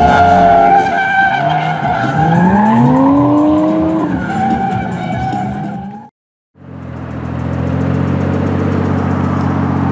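Drift car engines revving, rising and falling in pitch, with tire squeal. About six seconds in the sound cuts out for a moment, then a car engine holds a steady note.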